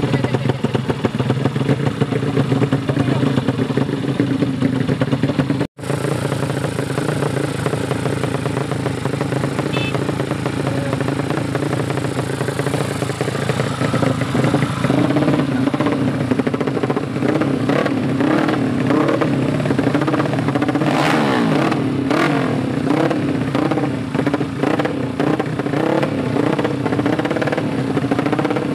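Tuned drag-race motorcycle engines running, steady at first and then revved in quick rising and falling blips. The sound cuts out for an instant about six seconds in.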